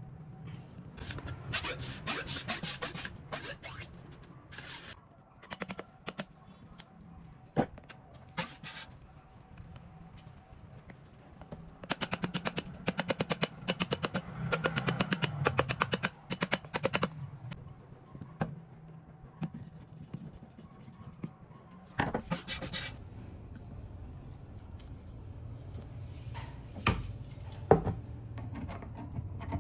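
Bursts of rapid clicking, with rubbing and a few single knocks, from hand work on an old pump.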